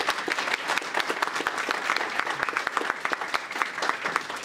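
Audience applauding, many hands clapping at once, thinning a little near the end.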